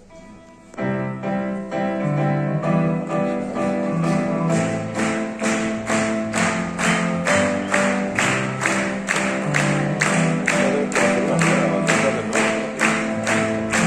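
Live band starting a song: held keyboard chords come in about a second in, and drums join soon after with a steady beat of about two hits a second.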